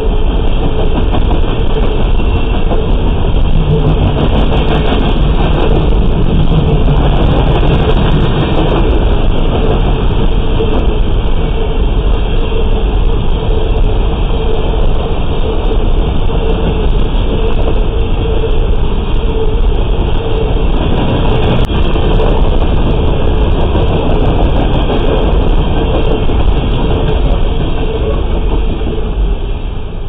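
Freight train of open-top hopper cars rolling past: steel wheels on the rails make a loud, steady rumble with clicking over the rail joints. The last car goes by near the end and the sound begins to fade.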